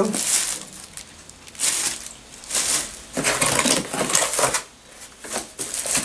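Plastic packaging wrap crinkling and rustling in irregular bursts as wrapped vacuum cleaner parts are handled.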